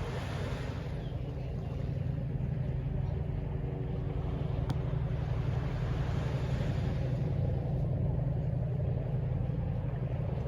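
Steady low rumble of distant city traffic, swelling and easing as vehicles pass, with a single sharp tick about halfway through.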